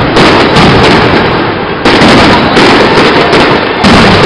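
Aerial firework shells bursting overhead in a loud, rapid string of bangs and crackles, with fresh heavy bangs about two seconds in and again near the end.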